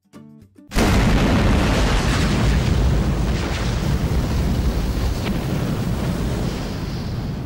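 Explosion sound effect: a sudden loud boom under a second in, then a long, low rumble like billowing flames that slowly dies away. A few short plucked guitar notes come just before the boom.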